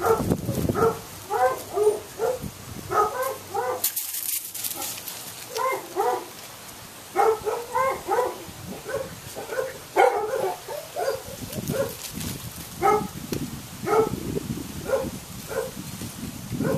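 Puppies barking in short, high, repeated yips, several a second, with a brief pause about four seconds in.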